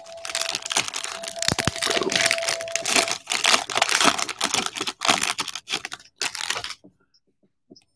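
Foil trading-card pack wrapper crinkling and rustling as it is handled and torn open, with dense irregular crackles and clicks that stop sharply about a second before the end.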